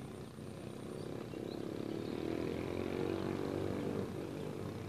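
A motor engine running with a steady hum, growing louder through the middle and easing off near the end.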